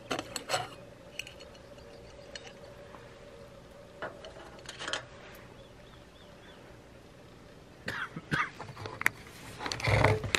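Light clinks and knocks of a metal camp cooking pot being handled, a few at the start, a pair about halfway through and a cluster near the end, over a faint steady hum from a backpacking canister stove that fades out past the middle.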